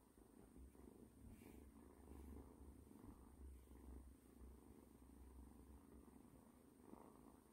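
A kitten purring faintly and steadily while being stroked.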